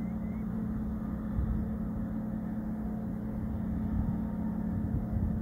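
A motor engine humming steadily at a low pitch, over a low, uneven rumble.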